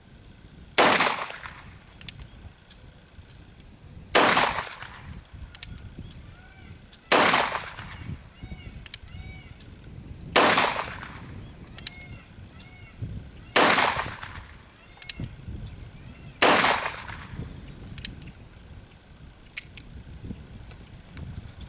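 Six shots from a Ruger Single Six single-action revolver in .32 H&R Magnum, fired one at a time about three seconds apart, each a sharp crack with a short echo. Small metallic clicks come between the shots and after the last one.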